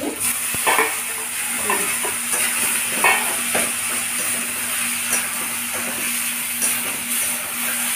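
Boiled fish roe and spiced onion masala sizzling steadily in hot oil in a pan, while a spoon stirs and scrapes it, with scattered light clicks against the pan.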